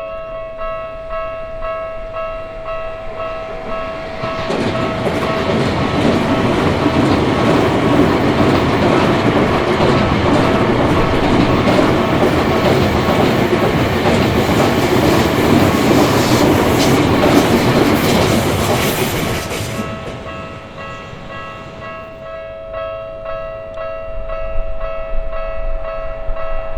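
Japanese level-crossing alarm bell ringing in a steady repeating ding. A Tokyu Toyoko Line electric train then passes through the crossing for about fifteen seconds, its rumble and wheel clatter drowning the bell. The bell rings on after the train has gone, and a low rumble builds again near the end.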